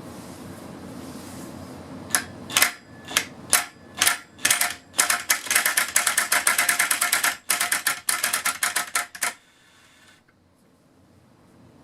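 Impact wrench with a drill chuck on it: the motor spins, then single hammer blows about two seconds in come faster and run together into rapid, even hammering for about four seconds before stopping.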